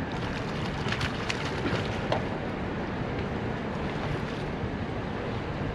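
Steady wind noise on the microphone, with a few short splashes and knocks about one to two seconds in as a catfish is netted over the side of the boat.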